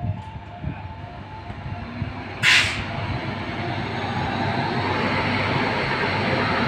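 Indian Railways electric locomotive passing close by, its wheels running on the rails in a steady rushing noise that grows louder over the last few seconds. A short, sharp burst of hiss cuts in about two and a half seconds in.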